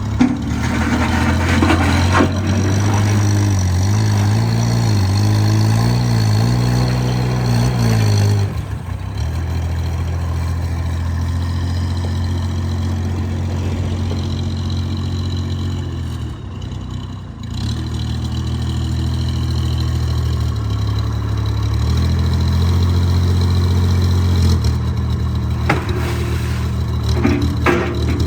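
Mini backhoe loader's engine running, its speed wavering up and down for the first several seconds under changing load, then running steadier. A few sharp clanks come near the end.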